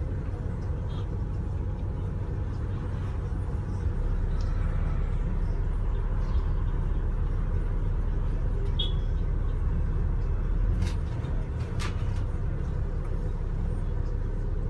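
London bus engine and road noise heard from inside the passenger deck: a steady low rumble that grows louder about four seconds in. A couple of sharp clicks come about eleven seconds in.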